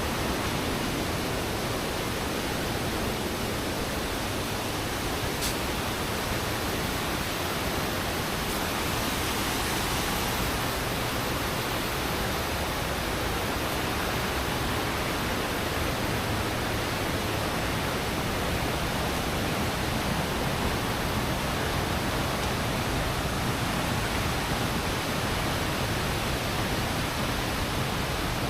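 Steady rush of flowing water, an even hiss spread across all pitches that holds level throughout, with one faint tick about five and a half seconds in.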